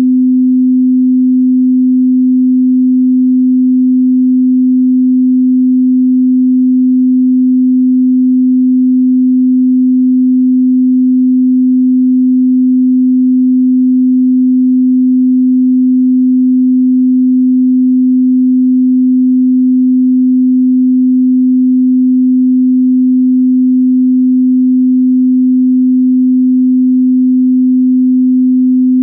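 Pure 255 Hz sine test tone, held steady at one pitch and level with no other sound.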